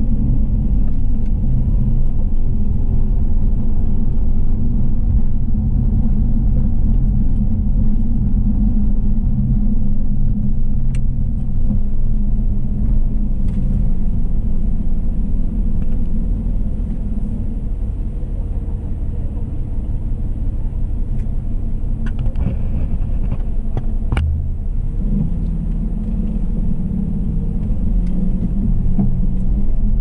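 Car driving: a steady low rumble of road and engine noise that eases a little through the middle, with a few faint clicks.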